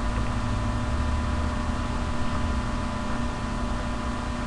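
Steady electrical hum and hiss with a low rumble and a few constant tones, unchanging throughout.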